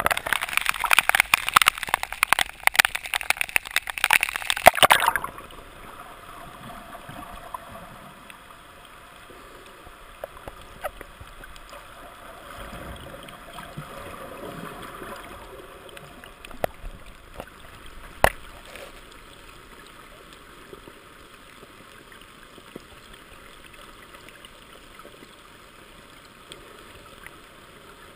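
Water splashing and bubbling loudly over a camera at the surface for about five seconds, then a quieter, muffled underwater hiss with scattered clicks and one sharper click past the middle.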